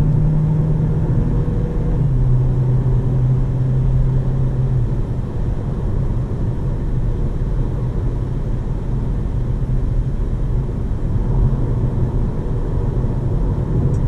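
Cabin sound of a Jeep Compass 1.5 e-Hybrid at motorway speed: a steady engine hum under tyre and wind noise. The engine note drops a step about two seconds in as the dual-clutch gearbox shifts up.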